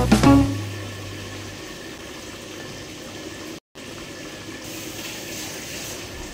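Thick coconut-milk spice sauce simmering in a pan as a steady, even noise while sauce is ladled over the chicken. Guitar music fades out at the start, and the sound drops out for a moment a little past midway.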